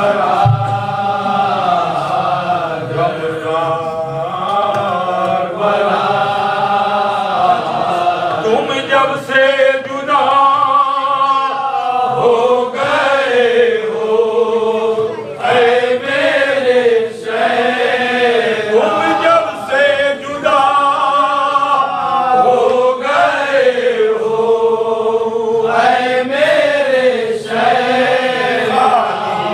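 Men's voices chanting a marsiya, a Shia lament, together in a slow rising and falling melody without instruments.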